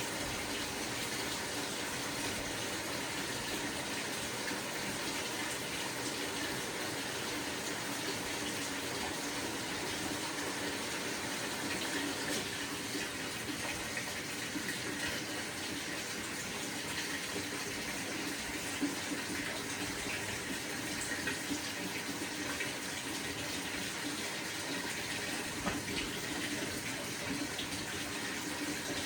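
LG WT7600HVA top-load washing machine filling, water running steadily into the drum.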